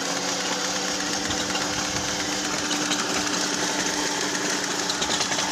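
Toyota 2AR-FE 2.5-litre four-cylinder engine running with an unstable, misfiring idle, the result of wrongly set cam-to-crank timing.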